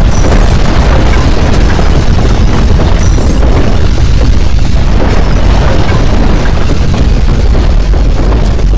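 Loud, continuous deep rumble with a noisy hiss above it, without let-up: the sound of strong earthquake shaking.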